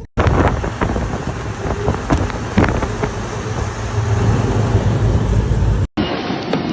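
A motor vehicle's steady low rumble and rushing road or wind noise, with a few sharp knocks along the way. The sound drops out briefly just after the start and again near the end.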